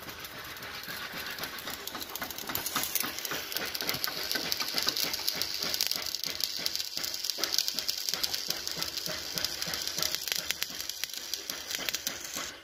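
Stick welding arc crackling and hissing steadily as a rod is burned onto a steel tractor plow part; the hiss grows stronger about three seconds in.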